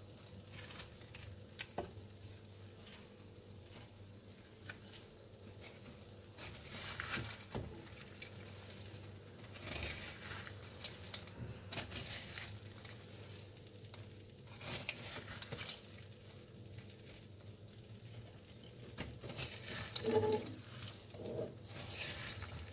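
Wooden spatula stirring sugar-coated peanuts in a metal pan, the nuts rattling and scraping in irregular bursts, with a faint steady low hum beneath. The sugar has set into a dry crystallized coating on the nuts.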